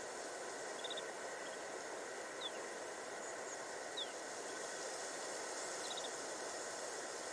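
Faint high calls of snow buntings over a steady hiss of background noise: a quick run of three or four notes about a second in and again near the end, and single short falling whistles about two and a half and four seconds in.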